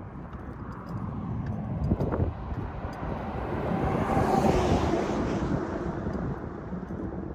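A vehicle driving past, its sound swelling to a peak about four to five seconds in and then fading, with wind rumbling on the microphone.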